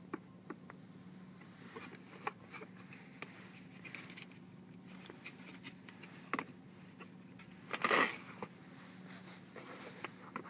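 Hands working at the GoPro Hero 3's plastic packaging to unscrew the camera from its mount: scattered clicks and rustles, with the loudest rustle about eight seconds in, over a steady low hum.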